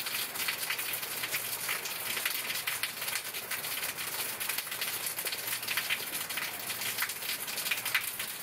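Steady rain falling, a constant hiss with many small drops pattering on nearby surfaces.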